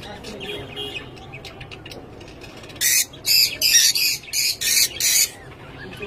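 Peach-faced lovebirds calling: soft chatter, then about three seconds in a quick run of about six shrill, harsh squawks over two seconds.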